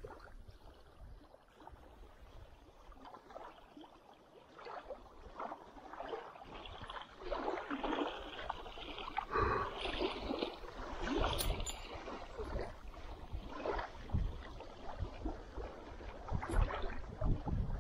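Small waves lapping and splashing irregularly at the lake's gravel shore, picking up about a third of the way in, with occasional low thumps.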